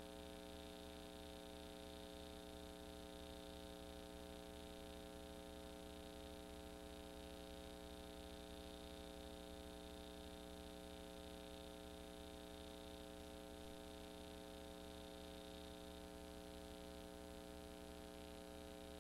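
Near silence: only a faint, steady electrical hum with a thin high whine that drops out near the end.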